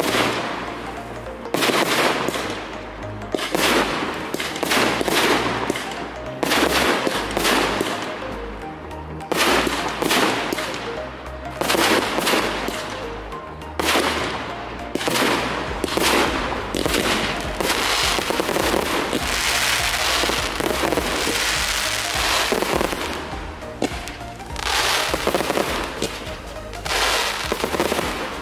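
Aerial fireworks shells bursting one after another, a sharp bang every second or two, each trailing off. The bursts run together more densely through the middle, and music plays underneath.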